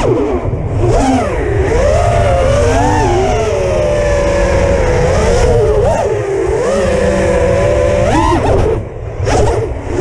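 Brushless motors of a 6-inch FPV quadcopter whining, the pitch sweeping up and down with each throttle change, over steady wind rumble on the onboard microphone. The throttle is chopped briefly about a second before the end, then comes back up.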